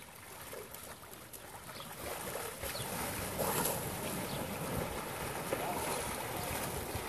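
Asian elephants wading and splashing in a pool: water sloshing and splashing, louder from about two seconds in.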